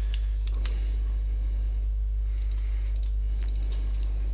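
Scattered clicks of a computer mouse and keyboard keys, several small clusters of sharp clicks, over a steady low hum.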